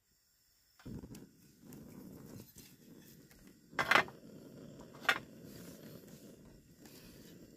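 Portable butane camping stove lit with a lighter about a second in: the burner catches suddenly and then runs with a steady low gas-flame rush. An aluminium pot is set on the stove's metal grate with a loud clank about four seconds in and a smaller one a second later.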